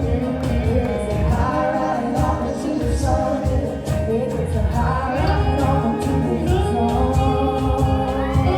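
Live country-rock band playing with singing, the drums steady under the voices.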